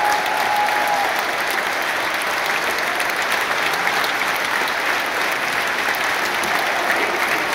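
Large football-stadium crowd applauding: a dense, steady clatter of many hands clapping.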